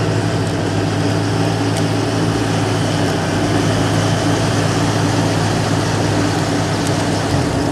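A muscle car's engine running at steady revs, a low, even engine note that holds the same pitch throughout.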